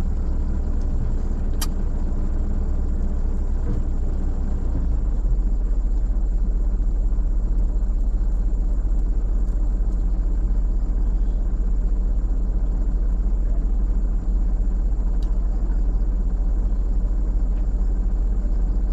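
A car's steady low engine and road rumble while driving. The drone drops lower and gets slightly louder about five seconds in.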